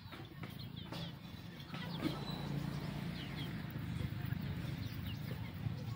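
Free-ranging chickens and chicks foraging, with scattered short high peeps from the chicks and soft calls from the hens, over a steady low hum that gets louder about two seconds in.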